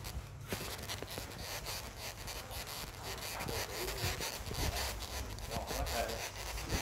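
Handling noise from a handheld camera carried while walking: short rubs and knocks over a low rumble, with faint voices in the background.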